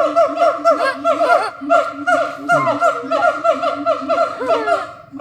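Apes calling in a fast, rhythmic run of hoots, about five a second, with several voices overlapping and some calls sliding up and down in pitch; the chorus breaks off near the end.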